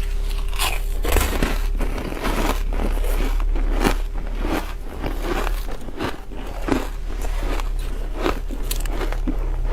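Ice being bitten and chewed close to the microphone: a quick, irregular run of sharp, brittle crunches, a few each second, over a steady low hum.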